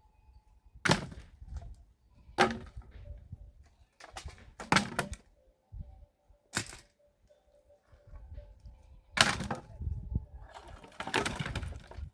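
Dry firewood cracking and snapping: about seven loud, sharp cracks at irregular intervals, then a longer rough crackling stretch near the end.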